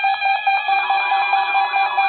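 Emergency Alert System attention signal: a loud, steady electronic alert tone with a fast flutter, announcing the tornado-drill test message. A lower steady tone joins about two-thirds of a second in.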